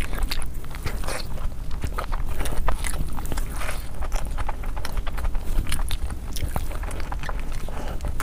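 Close-miked mukbang eating sounds: wet chewing and mouth smacking as handfuls of rice and chicken are eaten, a quick run of clicks, sped up to double speed. Under it runs a steady low hum.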